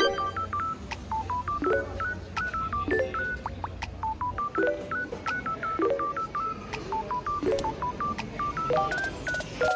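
Background music: a bouncy melody of short, bright beep-like notes, several a second, over a chord struck about once a second.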